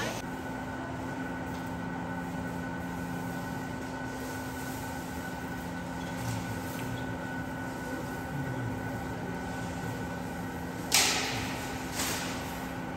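Steady mechanical hum of indoor machinery, holding a few fixed tones. Near the end come two sharp knocks about a second apart, the first the louder.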